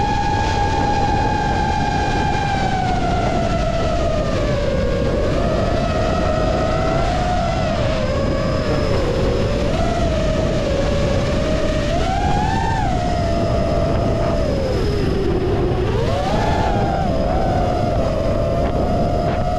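FPV quadcopter motors whining in flight, the pitch dipping and rising with the throttle. It sinks lowest about three quarters of the way in, then jumps back up. Wind buffets the microphone underneath.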